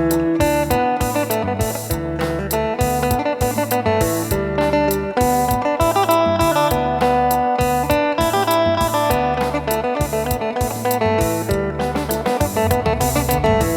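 Phin, the Isan plucked lute, playing a busy melody over a steady beat and low bass notes.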